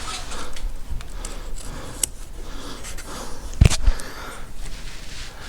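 Close handling and movement noises: rustling, light clicks and one sharp knock about two-thirds of the way through.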